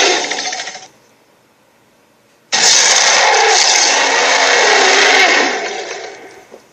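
A loud, harsh, noisy sound effect fades out. After a short gap it starts again abruptly, holds for about three seconds, then fades away.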